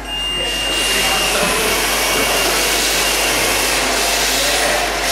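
RC drift cars launching off the start and drifting: electric motors whining and hard drift tyres hissing across the smooth floor, a steady noise with a high tone in the first second or so.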